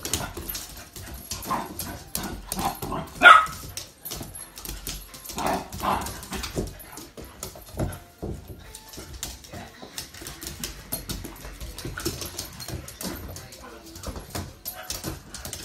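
Two puppies, a cockapoo and a French bulldog–pug cross, play-fighting: a few short barks and yips in the first seven seconds, the loudest about three seconds in, over many small clicks and scuffles of paws on a wooden floor.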